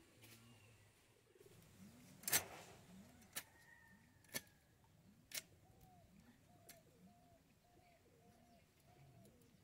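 A pigeon cooing softly, a low rising-and-falling coo repeated about once a second. A few sharp clicks cut across it, the loudest about two seconds in.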